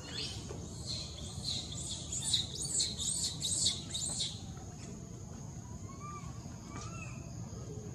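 Baby macaque screaming in a quick run of short, high-pitched squeals for about four seconds, a baby's distress call for its mother.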